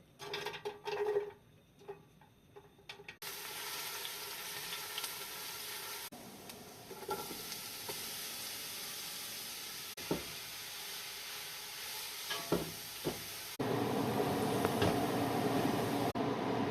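Food frying in a pan, a steady sizzle with a utensil stirring and occasionally knocking against the pan. The sizzle changes level abruptly several times and is loudest near the end, after a few sharp knocks at the start.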